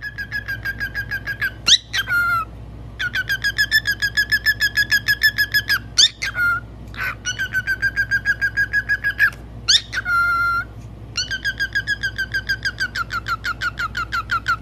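Cockatiel chattering in fast runs of repeated whistled chirps, about eight a second. Four times the runs break off for a quick rising call and a short held whistle.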